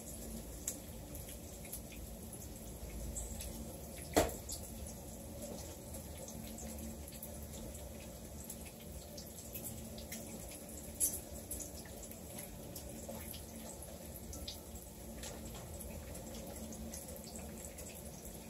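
Food frying in oil in a pan: a steady sizzling hiss with scattered small pops, and two sharper clicks about four and eleven seconds in.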